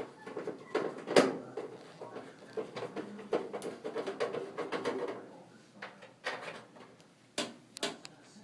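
Plastic and sheet-metal clicks, knocks and rattling as a dryer's control console is handled and its tabs worked into the slots on the top panel, with the loudest knock about a second in and a few sharp clicks near the end.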